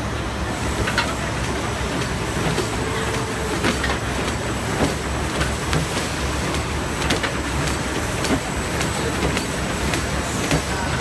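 Eight-line bottom-sealing cold-cutting plastic bag making machine running at speed: a steady mechanical clatter with sharp clicks at irregular intervals.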